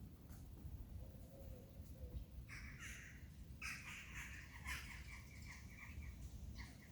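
Harsh, raspy bird calls: two rough calls about a second apart, then a rapid chattering run of short repeated notes.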